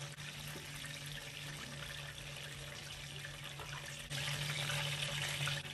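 Goat meat deep-frying in hot oil in an open pan, a steady sizzle that gets louder about four seconds in.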